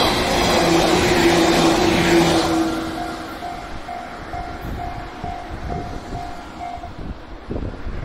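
A JR 115-series electric train passes close by with loud wheel and motor rumble and a steady hum, fading as it draws away about two and a half seconds in. A level-crossing warning bell then rings in even beats about twice a second and stops about seven seconds in.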